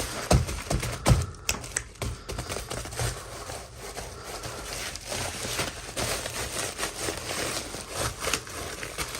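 Hands handling and opening toy packaging: irregular clicks, taps and plastic crinkling, with a few sharper knocks in the first two seconds.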